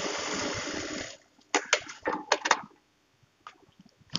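JUKI single-needle industrial lockstitch sewing machine running a seam at speed, stopping about a second in. A quick cluster of five or six sharp rustles and snaps follows as the cloth is pulled from the machine and handled.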